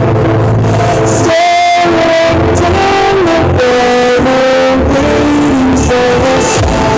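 Loud music played through a large stacked twelve-subwoofer sound system, a melody over heavy bass. The bass cuts out briefly about a second in, then comes back.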